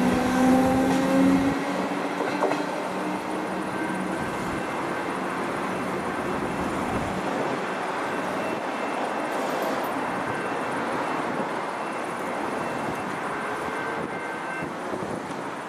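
Electric suburban train pulling away: a motor whine climbs in pitch for the first second or so, then gives way to steady wheel and rail noise that slowly fades as the train moves off.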